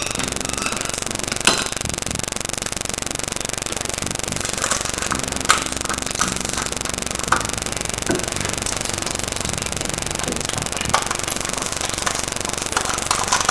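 A steady buzzing background noise, with scattered short clicks and knocks of a metal spoon against a ceramic bowl as rice pudding is stirred and milk is poured in.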